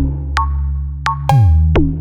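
Electronic music: synthesizer and drum-machine track with sharp hits whose pitch drops quickly, over a sustained deep bass.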